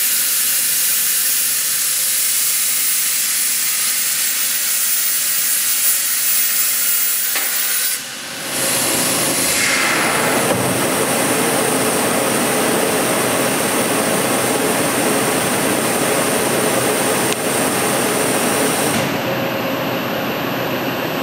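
Hypertherm high-definition plasma torch cutting a hole in a metal dome with a steady high hiss. About eight seconds in, the arc cuts off, and a broader, fuller rushing noise follows for the rest of the clip.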